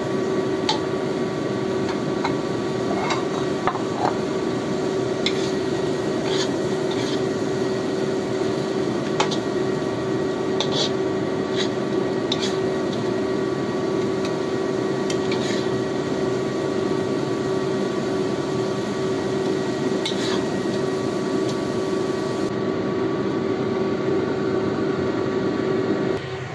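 Metal spatula scraping and tapping against a wok as stir-fried prawns are stirred and scooped onto a plate, in scattered strokes over a steady hum.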